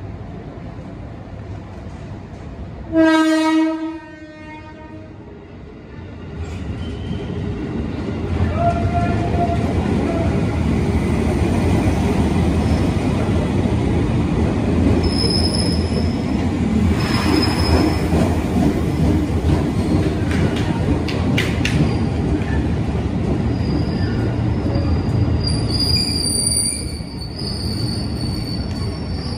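An electric commuter train sounds its horn once, about three seconds in, for about a second. Then the train comes through with a loud, steady rumble. High-pitched wheel squeals rise over it near the middle and again near the end.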